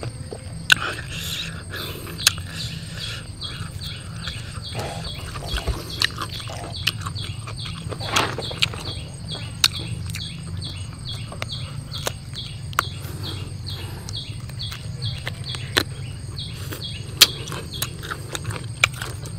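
Steady rhythmic high chirping, about two to three chirps a second, under a low background hum. Sharp clicks and smacks of eating come in now and then, the loudest about eight seconds in and near the end.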